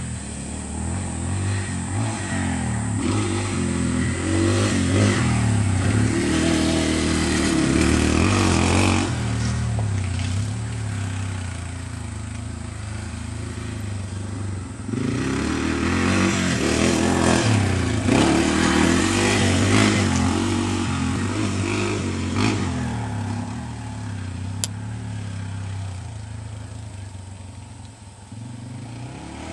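Dirt bike engine revving up and dropping back again and again as it is ridden around a dirt track. It grows loud as the bike comes close, then fades, twice.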